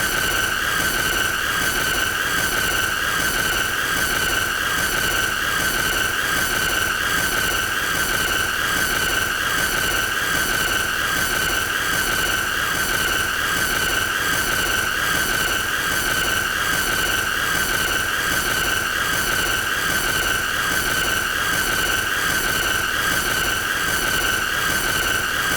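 A continuous high-pitched squeal: one shrill, slightly wavering tone with a fainter overtone above it, over a harsh hiss, unchanging throughout.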